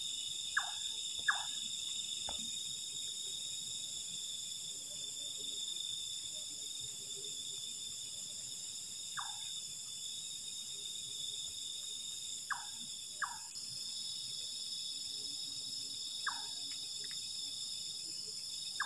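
Night insect chorus of crickets, a steady high-pitched trilling, with a few short falling chirps from some small animal scattered through it, two of them in quick pairs.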